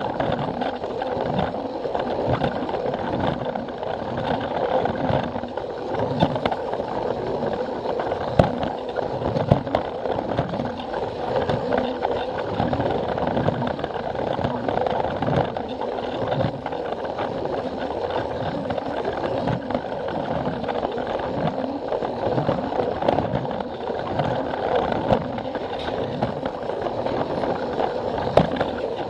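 Plarail toy train's battery-driven motor running with a steady whine, and its wheels clacking regularly over the joints of the plastic track.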